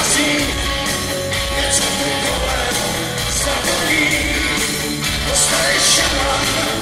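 Live rock band playing loud, with drums, electric guitar and a sung vocal, heard from the crowd at the concert. Cymbal crashes stand out several times.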